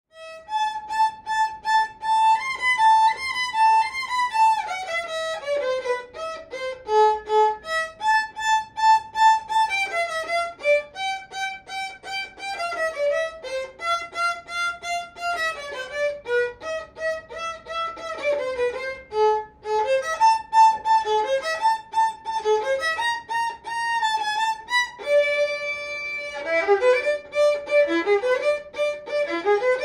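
Child-size violin played solo with the bow: a melody of held notes and stepwise descending runs.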